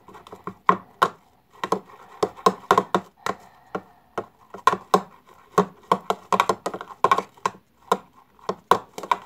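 Fluffy slime made with glue and shaving foam being mixed, giving an irregular run of short sticky clicks and small pops, several a second. The slime has just come together after extra activator was added.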